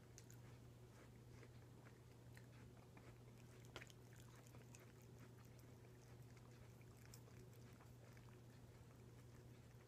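Near silence: a low steady hum with faint, scattered wet mouth clicks from eating, one a little sharper about four seconds in.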